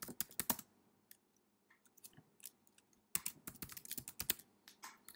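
Typing on a computer keyboard: a quick run of keystrokes at the start, a few scattered taps, then another run about three seconds in.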